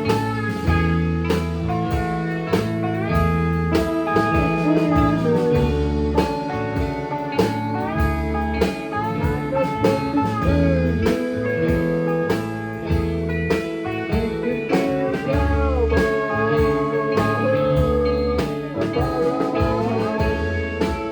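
Live rock band playing an instrumental passage: a guitar lead with bending notes over steady bass and drums, in a bluesy style.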